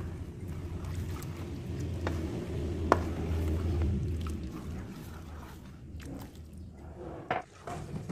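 Thin bánh xèo batter sloshing as it is stirred in a bowl, with a few sharp knocks of the utensil against the bowl, the loudest about three seconds in.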